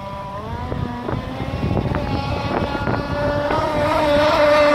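Radio-controlled speed boat's engine running at full speed on the water, a steady high buzz that grows louder as the boat comes closer.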